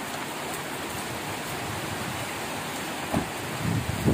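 Steady rain falling, an even hiss. About three seconds in there is a low bump, and uneven low rumbling follows near the end.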